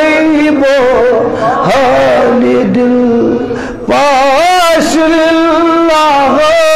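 A man sings a Kashmiri naat, a devotional song in praise of the Prophet, solo into a microphone in long ornamented phrases. He takes a short breath-break a little before the middle, and a steadier low held note runs under the melody.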